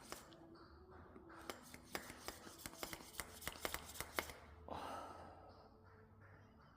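Light irregular clicks and taps of hand work on bike parts, then a short hiss about five seconds in.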